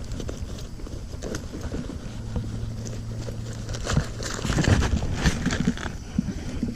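Rustling and scattered clicks from gear being handled close to the microphone, busiest about four to five and a half seconds in, over a steady low hum.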